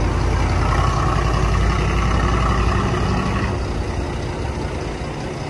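Truck-mounted crane's diesel engine running with a steady low rumble that eases a little about three and a half seconds in.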